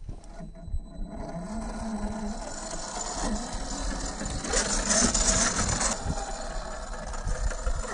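Scale RC rock crawler's 21T 550 brushed electric motor and geared drivetrain whining steadily as it crawls over rock. The sound grows louder and harsher about four to six seconds in.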